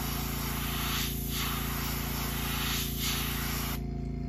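Airbrush spraying paint: a steady hiss of air that swells briefly every second or two, then cuts off near the end. A steady low hum runs underneath.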